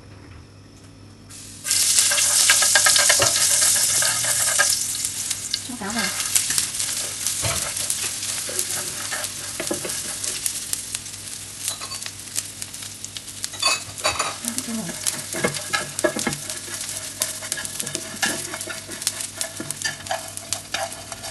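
Dried small fish tipped into hot oil in a frying pan, setting off a sudden loud sizzle about a second and a half in. The sizzling carries on, somewhat quieter, with many sharp clicks as wooden chopsticks stir and toss the fish against the pan to fry it crisp.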